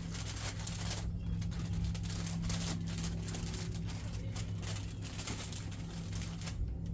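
Steady low hum under irregular rustling and handling noise as kayak parts and packaging are unpacked and sorted.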